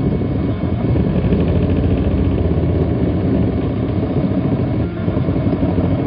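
Homemade plywood-framed 3D printer running a print: stepper motors drive the toothed-belt axes with a steady mechanical hum and rattle carried through the wooden frame.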